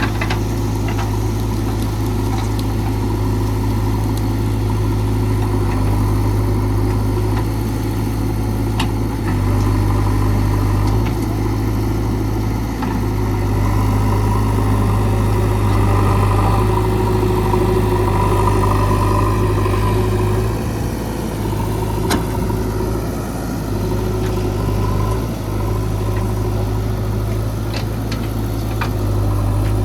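JCB 3DX backhoe loader's diesel engine running steadily, somewhat louder through the middle, with a few sharp knocks of metal work.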